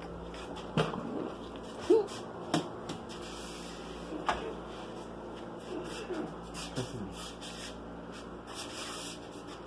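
Scattered knocks, taps and rustles from a handheld phone being moved about, with a few brief low voice-like sounds; the loudest is a short voice-like sound about two seconds in.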